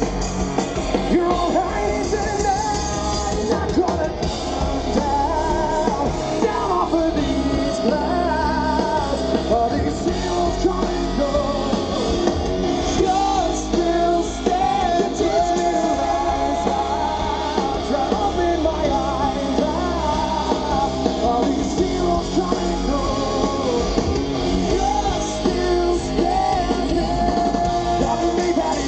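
Live rock band playing, with a man singing lead over electric guitar.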